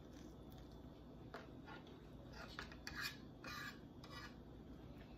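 Faint clicks and scrapes of a metal fork against a plate as it picks up scrambled egg, bunched in the middle seconds.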